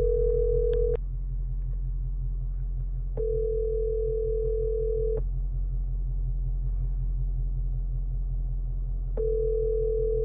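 Telephone ringback tone: a steady ring of about two seconds followed by about four seconds of gap, repeating, heard as a call rings out unanswered so far. A steady low rumble runs underneath.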